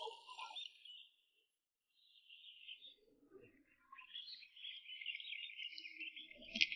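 Faint birds chirping in patches, dropping out for a moment about a second in and then running on more steadily.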